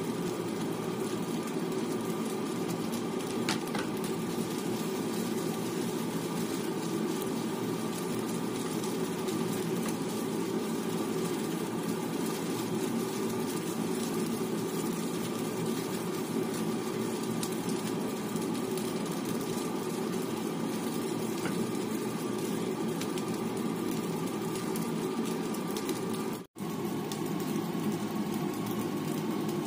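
Steady sizzle of fried rice cooking in a nonstick pan over a constant hum, with a light spatula tap now and then. The sound drops out for an instant near the end.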